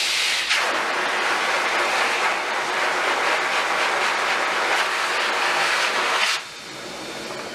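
Pet grooming dryer (hose-type blower) running on its low power setting, a steady rush of air from the hose that drops to a quieter level about six seconds in.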